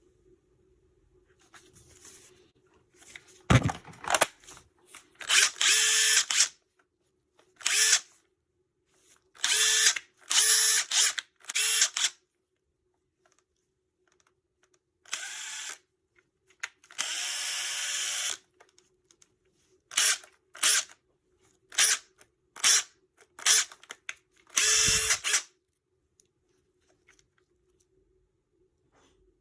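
Makita TD171D cordless impact driver run in about a dozen short trigger pulls, each spinning up for a second or so and stopping, with pauses between; one longer run past the middle is quieter than the rest.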